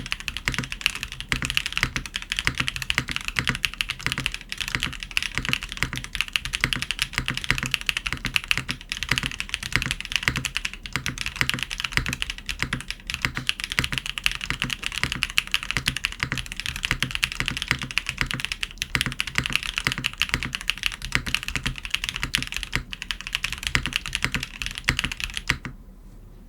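Fast, continuous typing on a Monokei Kage SE TKL mechanical keyboard with a polycarbonate plate, Bsun Aurora Polaris switches, GMK Lavender keycaps, and no case or PCB foam. The typing stops near the end.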